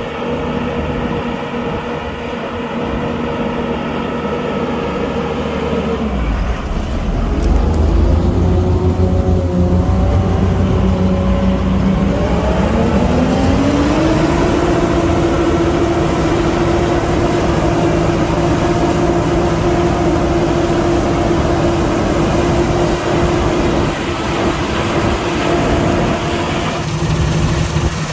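Claas Lexion 540 combine harvester's diesel engine running under load. It grows louder about six seconds in, rises in pitch over about two seconds near the middle, then holds steady at the higher speed.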